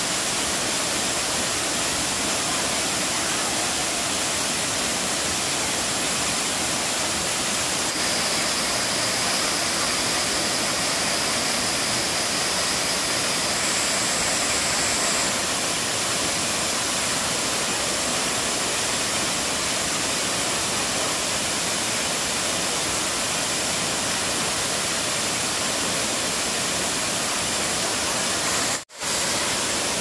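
Waterfall pouring over a rock ledge into a pool: a steady rush of falling water. A thin, high, steady tone joins for several seconds in the middle, and the sound cuts out for an instant near the end.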